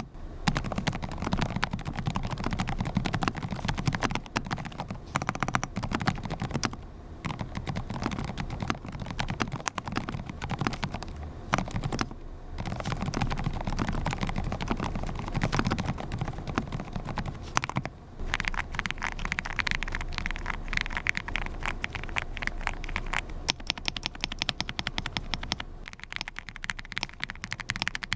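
Fast, continuous typing on a Monstargear Nemo67 custom mechanical keyboard: dense keystroke clacks with a few brief pauses.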